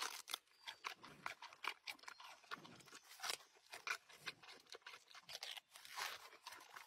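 Giant panda biting and chewing a bamboo shoot: irregular crisp crunches and tearing as it strips the fibrous husk, with softer munching between the bites.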